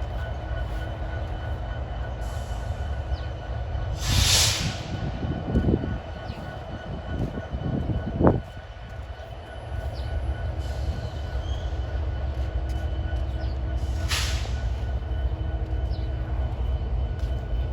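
Diesel freight locomotive running with a steady low rumble and a faint steady whine, broken by two short hisses about four and fourteen seconds in and a sharp knock about eight seconds in, the loudest moment.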